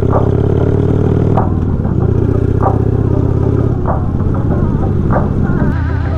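Motorcycle engine running steadily at cruising speed.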